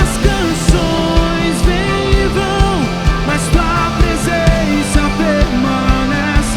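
Live worship band playing an instrumental passage: a drum kit keeps a steady kick beat with cymbal hits under bass and keyboard, while a lead melody bends and slides in pitch over the top.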